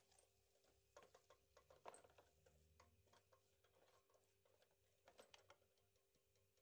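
Faint clicks and scrapes of a spatula stirring sliced onions in a frying pan, coming in clusters about one to two seconds in and again about five seconds in, over a faint steady hum.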